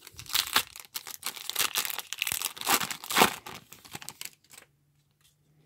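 The plastic wrapper of a 2018 Topps Series 1 baseball card pack being torn open by hand, a rapid run of crinkling and tearing that stops about three-quarters of the way through.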